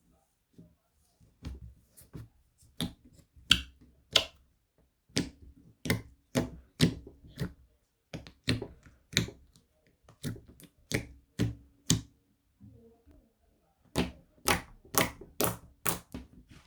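Thick toffee slime being pressed and poked by hand, giving a run of sticky clicks and pops, about two to three a second, with two short pauses.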